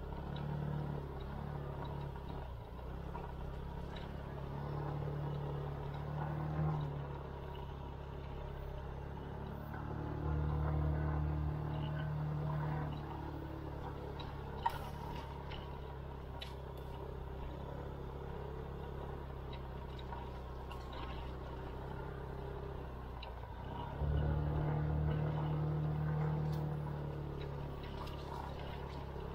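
SYM KRN scooter's engine running under way, getting louder with more throttle about ten seconds in and again near the end. One sharp click about halfway through.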